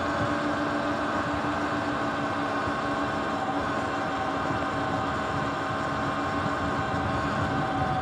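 Sur-Ron electric dirt bike's motor and drivetrain whining steadily at cruising speed, several fixed tones over a steady rush of road noise. One tone eases slightly lower near the end.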